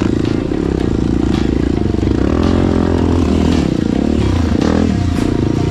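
Dirt bike's engine running under the rider, its pitch rising and falling repeatedly as the throttle is opened and closed, with a few clicks and rattles over the rough trail.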